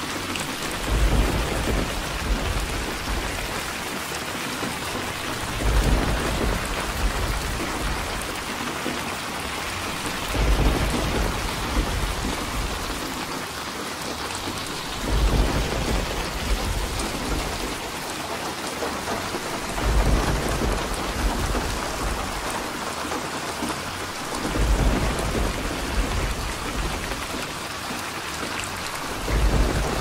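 Very heavy rain falling steadily, with deep rumbles of thunder rolling in about every five seconds, seven times.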